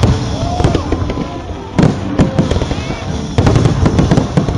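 Aerial fireworks bursting in quick succession: a string of sharp bangs and crackles, densest in the second half.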